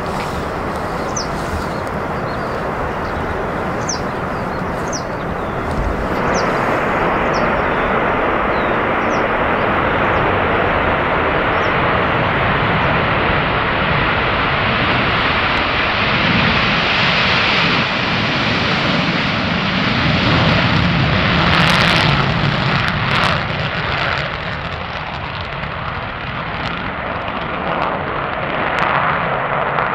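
Rockwell B-1B Lancer's four General Electric F101 afterburning turbofans at full afterburner on the takeoff roll and liftoff: a loud, steady jet noise that grows louder about six seconds in. A few sharp crackles come through about two-thirds of the way in.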